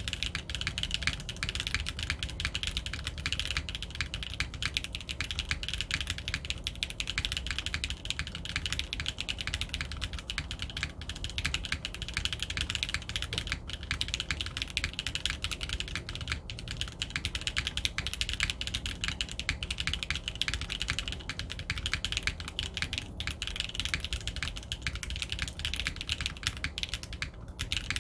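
Fast, continuous typing on a custom 60% mechanical keyboard with stock Kailh BCP long-pole linear switches in a carbon fibre plate, under GMK keycaps: a dense run of keystroke clacks with only a few brief pauses.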